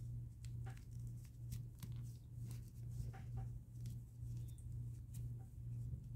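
Faint handling of a small crocheted yarn piece: scattered light ticks and rustles from fingers and fingernails working the yarn. Under them runs a steady low hum that swells and fades in a regular beat, about every two-thirds of a second.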